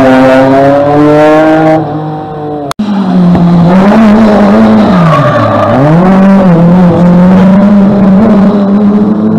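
Rally car engines running hard through a corner. The first climbs steadily in pitch. After an abrupt cut about a quarter of the way in, a second car's engine holds high revs, with its pitch dropping sharply and climbing back once around the middle.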